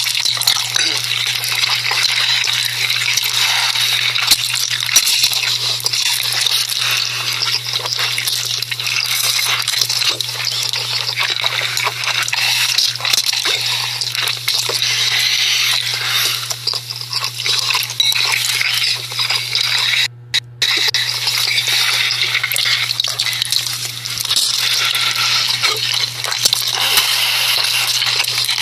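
Wet, crackly ASMR food sounds from a noodle ASMR video playing back, dense with small clicks, over a steady low hum. The audio cuts out twice very briefly about twenty seconds in.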